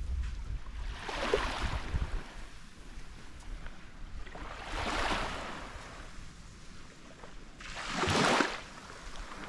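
Small waves washing up on a sandy beach, three gentle swells of surf a few seconds apart, the last the loudest.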